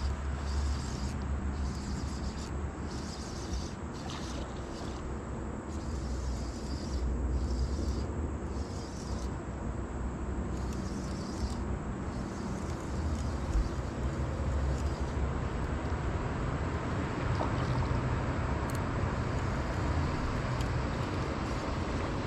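Boat motor running under way: a steady low drone with the rush of wind and water over it.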